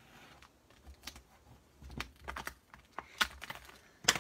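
Scattered light clicks and taps from hands at work, with a sharper click about three seconds in and a louder one near the end.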